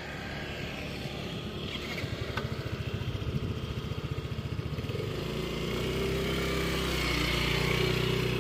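Yamaha Mio i 125 scooter's single-cylinder 125 cc four-stroke engine running with a fast, even low pulse. About five seconds in it picks up revs to a steadier, slightly louder note.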